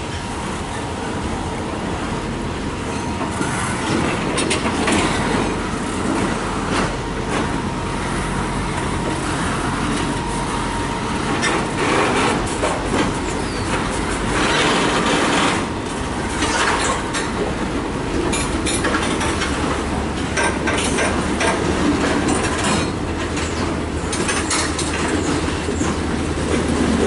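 Freight cars rolling past on adjacent tracks: steel wheels clacking over rail joints with frequent knocks and a steady rumble, a thin wheel squeal at times, and a low steady hum underneath.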